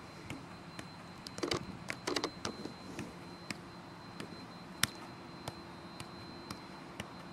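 Soccer ball being juggled with foot and thigh: a run of light taps, about two a second, the sharpest about five seconds in.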